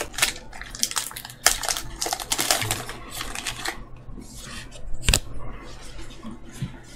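Magic: The Gathering trading cards being handled and flicked through one by one, a run of sharp clicks and papery rustles, with one louder knock about five seconds in.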